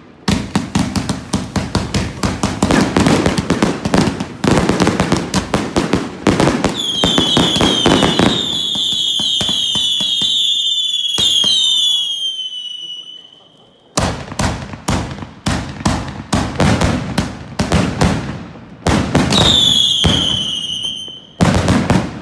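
A 305-shot fireworks cake firing in rapid succession: a dense run of bangs, then a stretch of several overlapping high whistles sliding slowly down in pitch. After a short lull near the middle, more rapid bangs follow, with another set of falling whistles and one last loud bang near the end.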